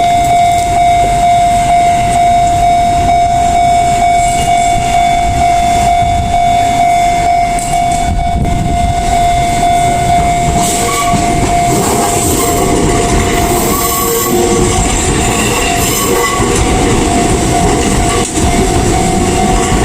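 A level crossing warning bell rings steadily. About halfway through, an Enoshima Electric Railway train passes, its wheels rumbling over the rails and squealing.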